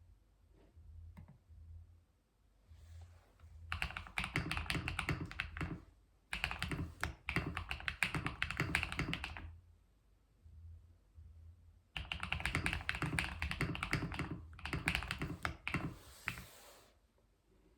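Typing on a computer keyboard: quick runs of key presses, each run lasting a few seconds, with short pauses of only a few scattered key clicks between them.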